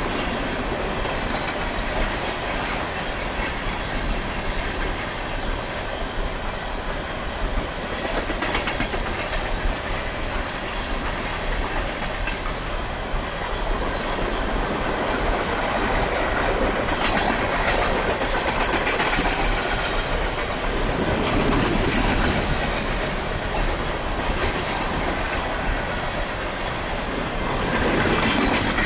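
Train passing on a track about 20 ft away: a steady rumble of railcars with wheels clacking over the rail joints, and a high wheel screech that comes and goes several times.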